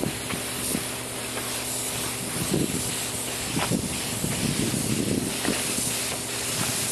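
Compressed-air paint spray gun with a cup hanging beneath spraying reduced Rust-Oleum paint, a steady air hiss, with a faint steady low hum underneath and a few soft thumps.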